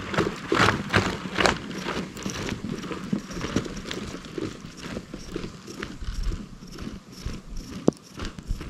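Boots and a snowboard crunching over packed snow: loud crunches about every half second at first, then fainter, scattered crunches as they move away.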